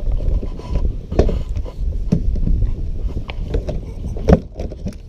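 Wind rumbling on the microphone, with scattered knocks and rattles as a fishing rod is tugged against a kayak rod holder that keeps it stuck. The sharpest knock comes about four seconds in.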